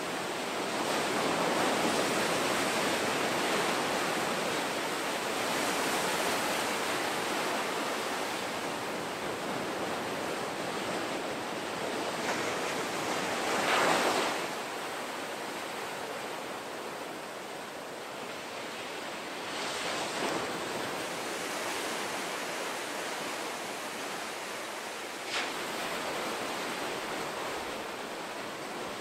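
Ocean waves breaking and surf washing in, a steady rushing of water with a louder wave crash about halfway through.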